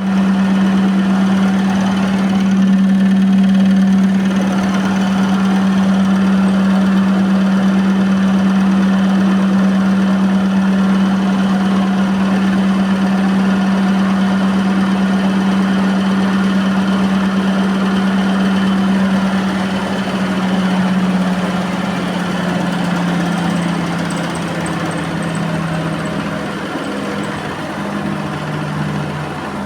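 Electrolux 15 kg commercial washer spinning at high speed with an unbalanced load, a loud steady hum over a dense mechanical din. About two-thirds of the way in the hum begins falling in pitch as the drum slows down from its 1245 rpm spin.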